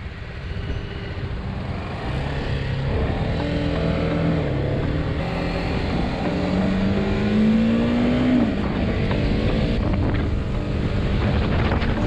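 Motorcycle engine pulling away and accelerating through the gears, its pitch climbing steadily and then dropping sharply at an upshift about eight seconds in. Wind noise rushes over the microphone throughout.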